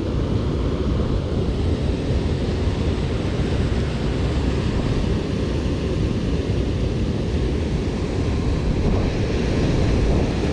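Steady rushing roar of river water pouring from a dam spillway, with wind buffeting the microphone.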